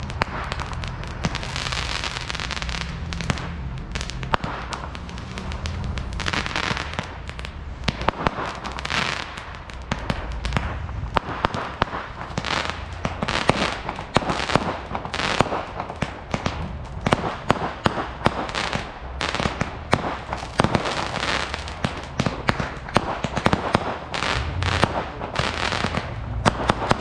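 Fireworks going off in a dense, continuous string of sharp bangs and crackling pops, with no let-up.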